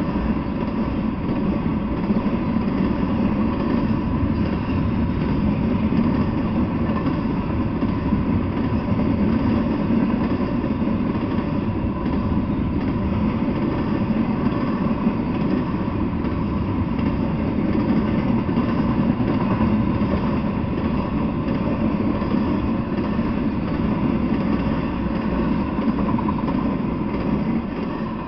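Intermodal freight train passing: a loud, steady noise of steel wheels running on the rails, starting to fade at the very end as the last cars go by.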